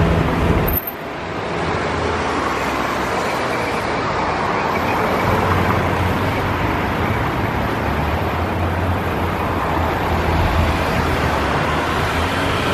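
City street traffic: cars passing through a junction over a steady wash of road noise and engine hum. A louder low engine rumble drops away abruptly about a second in.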